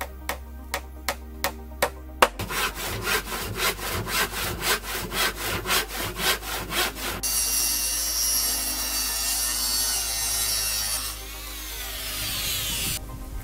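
About six hammer blows on pallet wood, then a handsaw cutting a plank in quick, even strokes, about three a second. About seven seconds in, a handheld electric circular saw starts abruptly and cuts through a board in a steady, loud whine that stops near the end.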